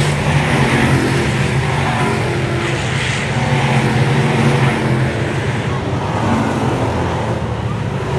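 Thunder Bomber stock car engine running loudly at a fairly steady pitch, with only slight rises and falls.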